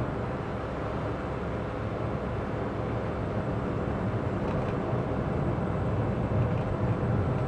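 Cabin noise of a Citroen Ami electric car driving on a wet country lane: a steady rumble of road and tyre noise, slowly building a little louder.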